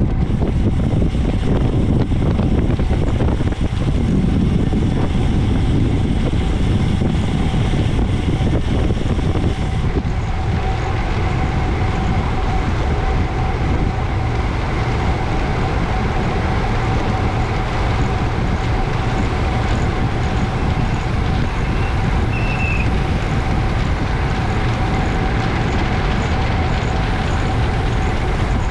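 Steady rush of wind on the microphone with tyre and road noise from a road bike riding at about 30 mph, and a faint steady pitched hum underneath.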